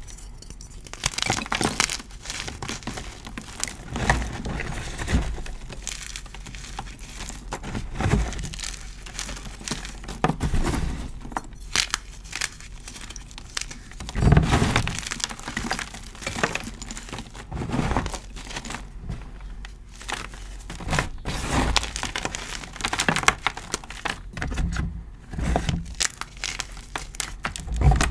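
Dyed gym chalk blocks crushed and crumbled between the fingers, giving irregular crunching and crackling over a soft powdery rustle, with louder crunches every few seconds.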